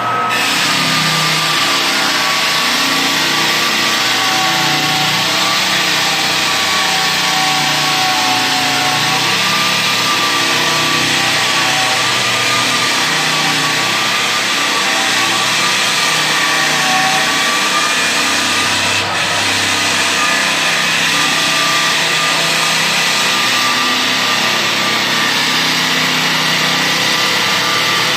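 Power sander running continuously, rough-sanding wood, its motor giving a steady whine that wavers slightly in pitch. The sound briefly dips a little past two-thirds of the way through.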